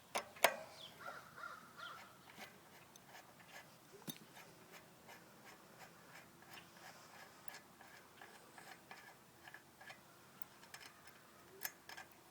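A sharp knock, then light clicking about three times a second: a 15 mm wrench working the front wheel's axle bolt loose to take the wheel off.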